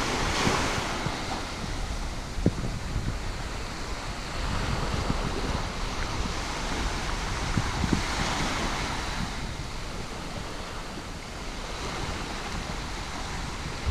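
Small waves breaking gently and washing up a sandy shore, swelling about a second in and again about eight seconds in, over wind rumbling and buffeting on the microphone.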